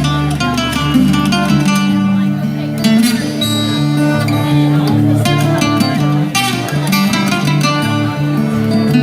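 Acoustic guitar with another plucked string instrument playing an instrumental folk-rock passage, with a moving bass line under picked melody notes.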